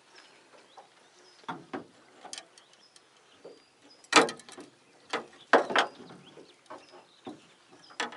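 Irregular knocks and clatters in a small boat as the rod and tackle are handled after landing a perch, the loudest about four and five and a half seconds in.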